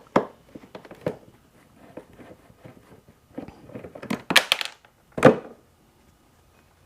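A Phillips screwdriver backing out a screw inside a plastic motorcycle trunk: scattered small clicks and ticks of the tool and hand on the plastic, with a few louder clatters about four and five seconds in as the screw comes loose and is handled.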